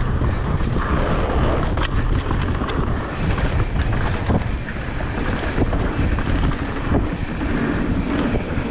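Wind buffeting the microphone in a steady low rumble, with scattered sharp clicks and rattles.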